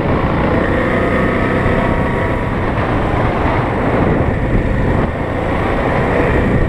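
Off-road vehicle engine running steadily under way on a trail, with a heavy low rumble of wind and terrain noise on the microphone.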